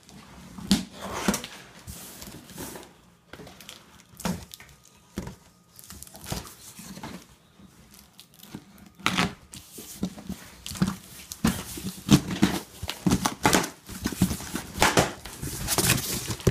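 Packing tape being peeled and torn from cardboard boxes while cardboard flaps scrape and rustle as they are opened: a run of irregular rasps and knocks, busier in the second half.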